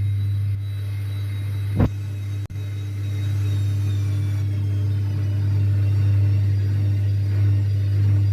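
Zanussi ZWSE680V front-loading washing machine spinning at speed on its repaired shock absorbers: a steady low hum with a faint high motor whine, and a single brief knock about two seconds in.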